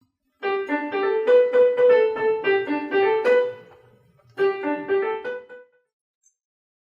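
Short piano-like keyboard tune: a run of quick notes for about three seconds, a brief pause, then a shorter phrase that ends about two-thirds of the way through.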